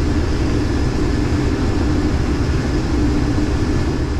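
Case IH 2388 combine running, heard inside the cab: a steady low drone with a constant hum and a faint high whine over it.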